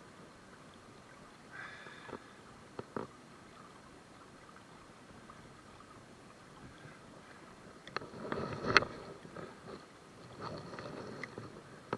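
River water running and splashing around a wader in shallow current, with a burst of splashing and one sharp splash about three-quarters of the way through.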